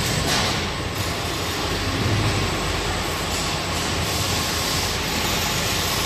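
Automatic flour-sack bagging line running: the belt conveyor and automatic bag sewing machine that closes the filled 25 kg woven sacks, giving a steady, loud machine noise.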